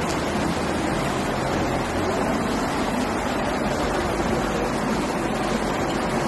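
Steady rushing and splashing of floodwater on a street, with a car's tyres ploughing through the water and a low engine hum beneath.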